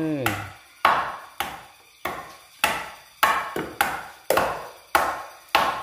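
Knife blades chopping dried herb stems on wooden chopping blocks: about ten sharp chops, roughly two a second.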